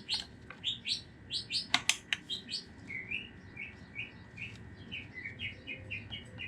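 A small songbird chirping over and over, short high notes about three a second, which the owner takes for some kind of wren. Two sharp clicks sound about two seconds in.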